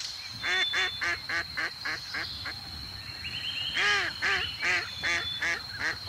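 Flock of white domestic geese honking in short, rapid, repeated calls, about three or four a second, with a louder burst of calls past the middle.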